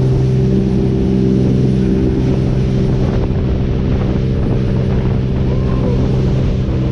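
Sportfishing boat's engines running steadily under way, a constant low drone, with water rushing along the hull.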